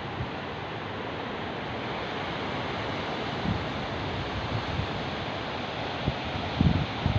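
Ocean surf breaking on a sandy beach, a steady wash of noise, with wind buffeting the microphone in short low rumbles, strongest about six to seven seconds in.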